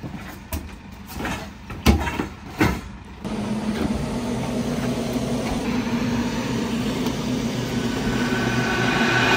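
A few sharp knocks and clatters as a bare carbon-fibre car tub is handled out of the back of a van, then, from about three seconds in, a steady low mechanical drone that slowly grows louder.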